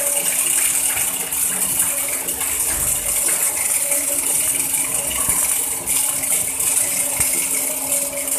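Gas metal arc welding on a steel pipeline joint: the arc gives a steady crackling hiss. Under it runs a steady low machinery hum.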